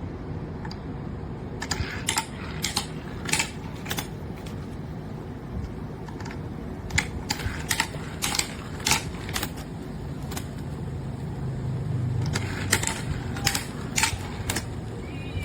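Small wooden toy cars clacking on a wooden ramp race track: irregular sharp clicks, one or two a second, over a low rumble that grows louder about ten seconds in.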